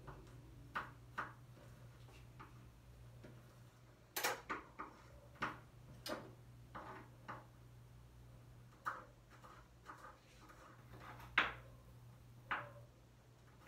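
Kitchen knife tapping on a cutting board as garlic cloves are cut: irregular taps, some in quick runs, the sharpest about three-quarters of the way in, over a low steady hum.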